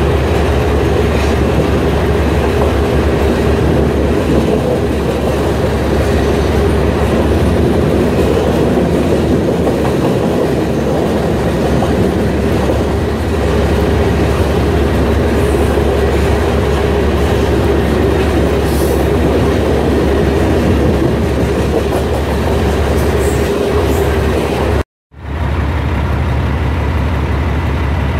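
Freight train of covered hopper cars rolling steadily past: a continuous rumble and rattle of steel wheels on rail. About 25 seconds in it cuts off abruptly, and a dump truck's engine runs steadily.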